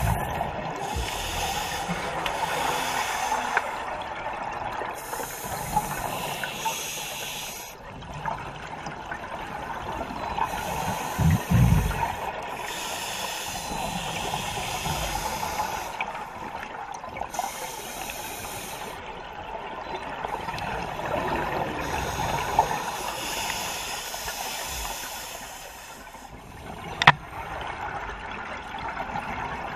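Scuba diver breathing through a regulator underwater: hissing inhalations alternate every few seconds with bubbly exhalations. A low thump comes about eleven seconds in and a sharp click near the end.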